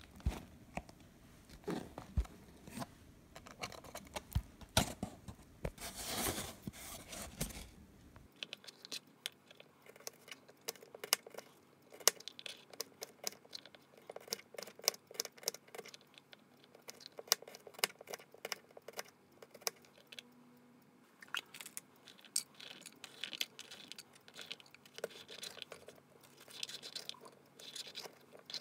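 A cardboard box being handled, with scraping and rustling that is loudest about six seconds in. After a cut, a kitchen knife slices peeled garlic cloves on a plastic cutting board: a long run of quick sharp taps and clicks as the blade meets the board, with hands shuffling the slices near the end.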